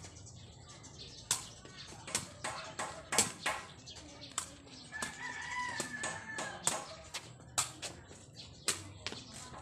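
A sepak takraw ball being kicked back and forth: a string of sharp taps at irregular intervals, one or two a second. A rooster crows once midway through.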